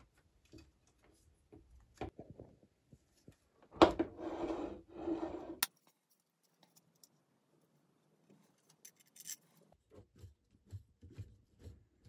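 Hands handling parts of a wooden and 3D-printed test rig: scattered small clicks and knocks. About four seconds in there is a sharp knock, then a louder rasping noise in two short bursts that cuts off suddenly.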